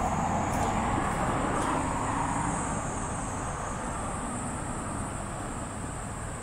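Street traffic: the noise of a passing vehicle fades away over the first few seconds, with a steady high-pitched whine in the background.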